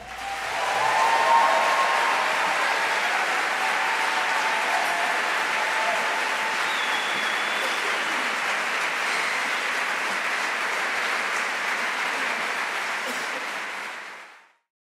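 Concert audience applauding after the choir's final chord, steady and even, with a few voices cheering in the first couple of seconds and one brief high whistle about seven seconds in; the applause then fades out near the end.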